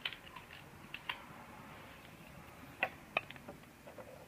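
A few faint, scattered clicks and taps of plastic being handled: the Otamatone's body and a screwdriver being brought to its battery-cover screw.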